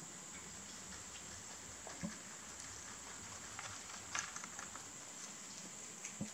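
Rabbits nibbling and chewing fresh basil leaves and stems: faint, irregular crunching and rustling, with a couple of crisper snaps about two and four seconds in.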